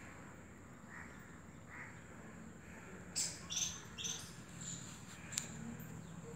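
Crows cawing several times, softly at first, then a quick cluster of louder, harsher caws a little after three seconds in. A single sharp click follows about two seconds later.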